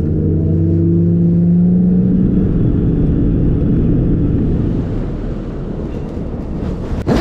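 Outboard engine of a bass boat running under way. Its pitch rises over the first couple of seconds, holds steady, then drops back somewhat after about five seconds. A sharp knock comes just before the end.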